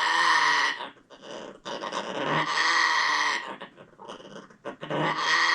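Parrot giving three long, harsh, growling calls with short gaps between, a sign of its alarm at a vacuum cleaner.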